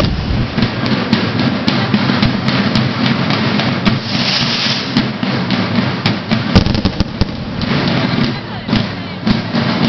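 Banda de guerra drum corps playing: rattling snare drums with many sharp, irregular hits over drum beats, and a brief brighter crash about four seconds in.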